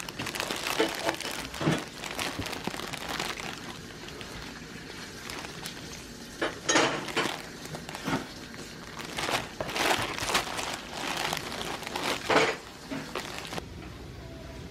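Plastic-wrapped instant noodle multipacks crinkling and rustling against a cardboard box as hands rummage through them and lift one out. It comes in irregular bursts and stops shortly before the end.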